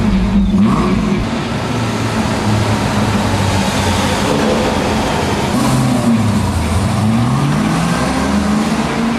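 SN95 Ford Mustang engine running loud and revving, its pitch rising and falling several times.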